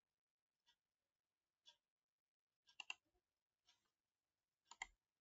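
Near silence broken by a few faint computer mouse clicks, two quick pairs about two seconds apart.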